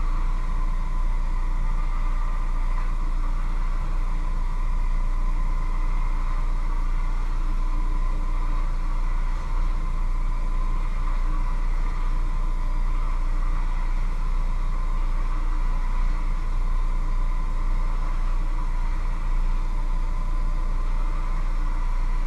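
A small electric motor running steadily: a low hum under an even rushing noise, with a faint steady whine.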